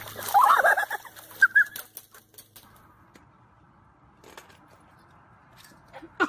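Ducks quacking several times over water splashing in a plastic paddling pool for the first two and a half seconds. After that only a faint steady background with a couple of light knocks.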